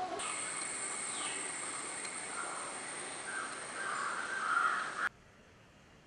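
Outdoor bird calls, with a few harsh calls in the second half, over a steady high insect drone. The sound cuts off suddenly about five seconds in.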